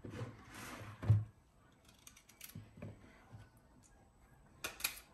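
Kitchen handling sounds during fruit preparation: a soft rustle, a sharp knock about a second in, then light scattered clicks and taps, with a quick double tap near the end.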